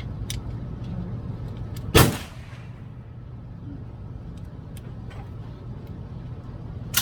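A single loud gunshot about two seconds in, with a short echoing tail, and another shot right at the end, over a steady low hum.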